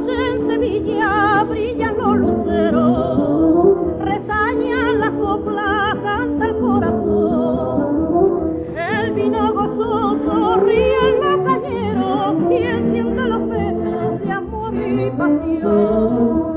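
Flamenco cante from a 1936 shellac 78 rpm record: a singer's voice wavers and ornaments long held notes over instrumental accompaniment, and the recording has the narrow, dull sound of an old disc.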